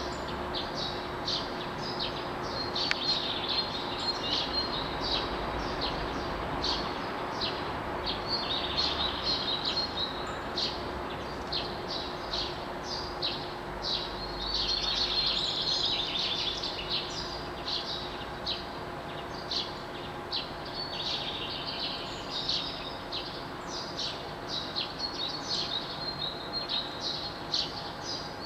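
Dawn chorus of many small birds chirping and singing at once in dense, overlapping quick notes, over a steady low background hum.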